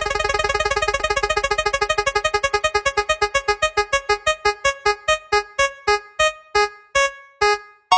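A synthesized keyboard note repeated very fast, then slowing steadily into separate blips that stop near the end: the ticking of a spinning wheel as it slows to a halt.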